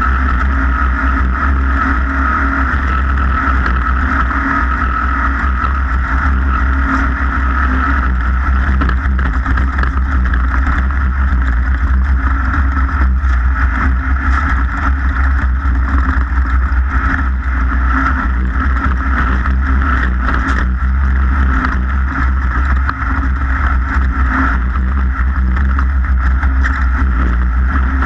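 A racing vehicle's engine running at a steady high speed throughout, with heavy wind rumble on the microphone.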